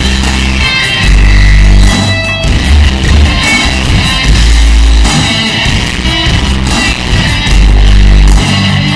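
Bass-boosted rock entrance-theme music with guitar, its heavy low bass notes swelling for about a second at a time, three times.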